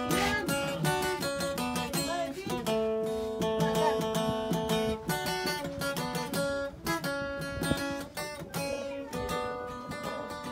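Acoustic guitar played by hand, chords strummed with notes left ringing, an instrumental passage without singing.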